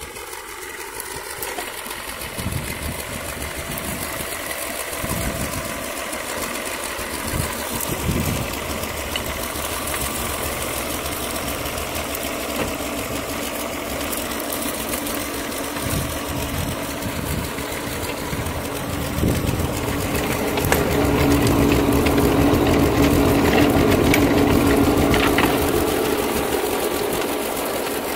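Long 350 tractor engine running steadily under load while its PTO-driven rotary tiller churns garden soil, with a fast mechanical rattle. It grows louder for several seconds in the second half, then eases off.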